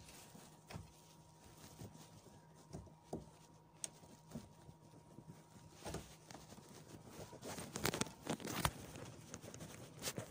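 Scattered faint clicks and knocks of hands working at a car's rear tail-light fittings, with a busier cluster about eight seconds in.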